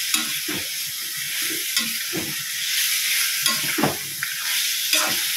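Mutton liver frying in oil with chilli powder and turmeric, sizzling steadily, while a utensil scrapes and knocks against the pan in irregular strokes as it is stirred.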